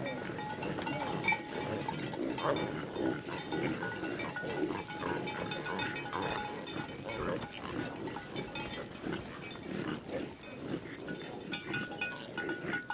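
A herd of reindeer milling close by, many animals grunting over and over, with thin bell-like tones ringing through.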